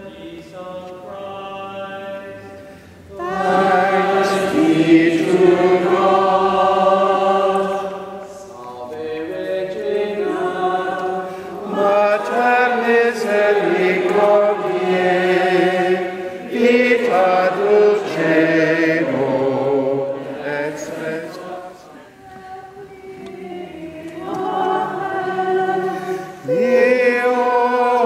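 A group of voices singing a slow liturgical chant in long phrases, softer for the first few seconds and fuller from about three seconds in.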